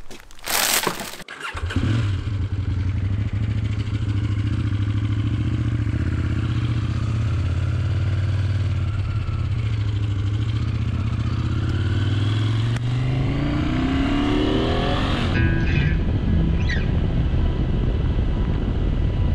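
KTM 790 Adventure R motorcycle's parallel-twin engine starting up about a second in, idling steadily, then rising in pitch as it revs and pulls away near the end.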